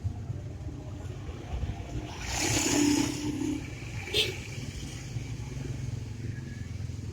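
Steady low rumble of vehicle traffic, with a louder passing swell about two and a half seconds in and a single sharp click about four seconds in.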